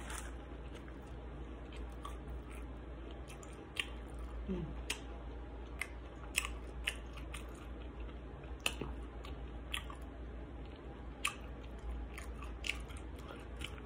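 A person chewing a mouthful of fried chicken sandwich with her mouth closed, heard as scattered wet mouth clicks and smacks over a steady low hum.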